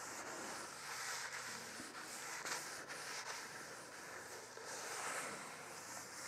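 Paper towel rubbing oil over the inside of a hot cast-iron Dutch oven, a faint, uneven scrubbing with a few small ticks, as a thin oil layer is spread for seasoning.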